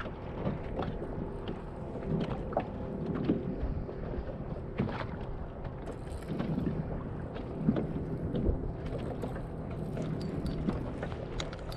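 Wind on the microphone and water moving against a fishing kayak's hull, with scattered light knocks and clicks.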